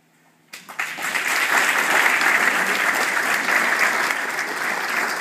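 Audience applauding. After a moment of quiet, clapping breaks out about half a second in, swells within a second to a loud, steady round of applause, and keeps going.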